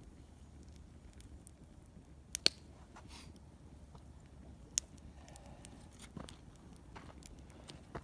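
Small wood campfire crackling, with scattered sharp pops: the loudest a close pair a little over two seconds in and another near five seconds. A faint steady low rumble lies under it.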